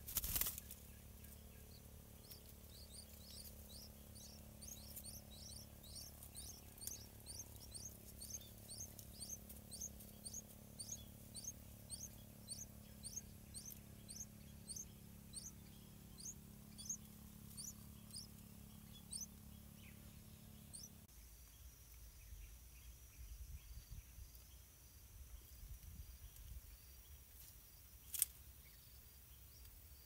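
Yellow-vented bulbul chicks begging at the nest: a run of high, thin chirps, about two a second, that stops a little past the middle. A sharp click comes at the very start and another near the end.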